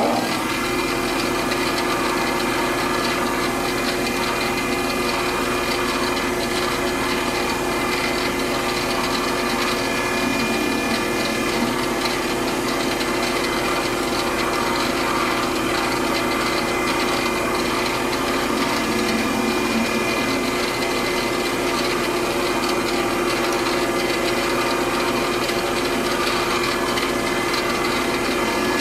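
Metal lathe running steadily while its insert turning tool takes a facing cut across the end of a metal part. The sound is an even mechanical hum from the drive with a higher steady whine, without change or pause.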